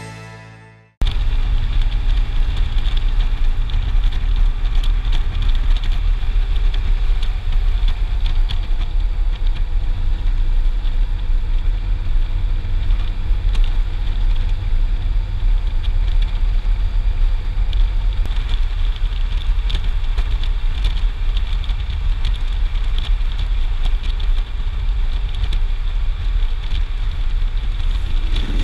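Music fading out in the first second, then a touring motorcycle riding at road speed: loud, steady wind rumble on the camera microphone with the engine's low drone beneath it.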